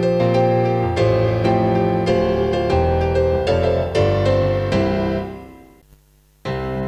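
Background piano music. It fades out about two-thirds of the way through, leaves a brief gap, and starts again near the end.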